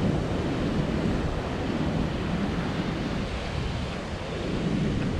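Ocean surf breaking and washing steadily, with wind buffeting the microphone.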